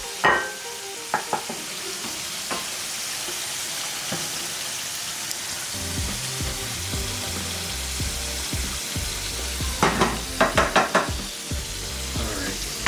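Chicken tenders frying in hot oil: a steady sizzle, with a few clicks of utensils.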